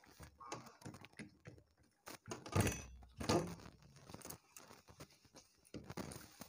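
Eating sounds: fingers mixing rice and fish curry on plates, chewing and lip smacks, as many small clicks and wet noises. A louder thump comes about two and a half seconds in, with another louder sound just after.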